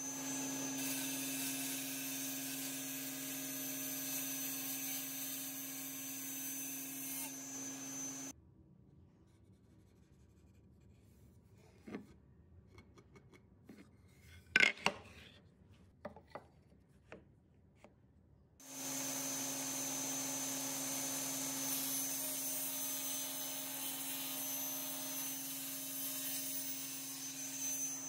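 Table saw running as an oak board is fed through it, a steady machine sound for about eight seconds that stops suddenly. After a quieter pause with a few sharp knocks of wood being handled, the loudest a little past the middle, the saw runs steadily again for the last nine seconds.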